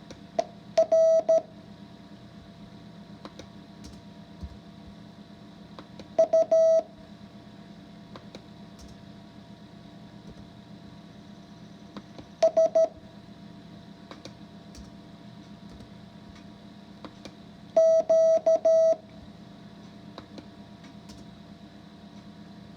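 Morse code practice tones: a single steady beep keyed into dits and dahs, sent in four short bursts about six seconds apart. The characters come from the lesson set of U, S, R and Q.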